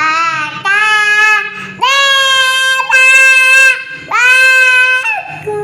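A child singing a run of loud, high, drawn-out notes, about five of them, each held for around a second with a slight waver.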